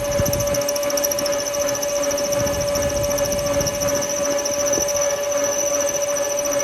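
Metal lathe running while a 1/2-inch drill bit drills into aluminium bar stock, with a steady high-pitched whine.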